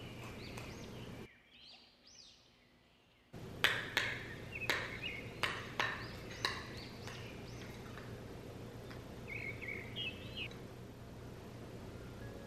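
Birds chirping over a steady background with a low hum. A little over a third of the way in comes a quick run of about six or seven sharp clinks: a spoon knocking against a glass bowl while stirring chopped herbs.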